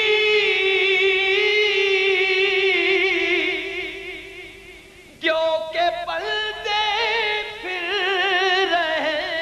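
A solo male voice sings Urdu devotional verse. He holds one long note with a wide vibrato that fades away over the first four or five seconds, then starts a new phrase with quick, ornamented turns of pitch.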